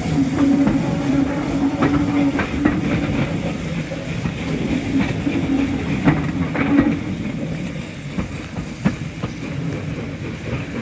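Passenger coaches of a steam-hauled train rolling past at low speed, the wheels clicking over the rail joints over a steady hum. The sound grows fainter over the last few seconds as the train draws away.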